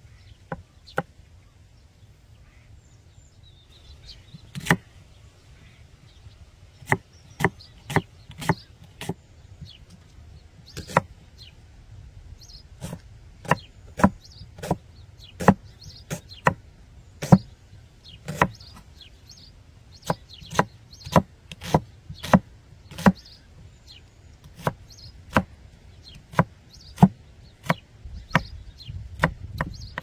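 Chef's knife slicing a red onion on a thick wooden log-round cutting board: sharp knocks of the blade hitting the wood, irregular, about one or two a second, starting a few seconds in.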